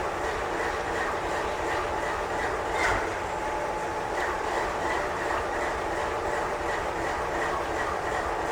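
Double-stack container well cars of a freight train rolling past: a steady wheel-on-rail noise with faint regular clicks and one louder knock about three seconds in.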